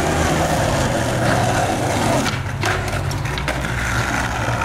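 Skateboard wheels rolling over rough asphalt in a steady low rumble, with a few sharp knocks of the board about two and a half to three and a half seconds in.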